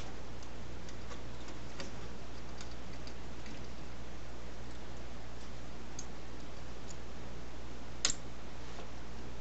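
Faint, irregular small clicks of scope rings and rifle parts being handled, with one sharp click about eight seconds in, over a steady low hum.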